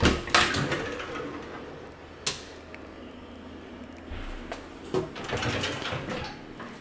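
A sliding closet door runs along its track and knocks against its stop. Then comes a single click, and a cluster of lighter knocks and clicks near the end.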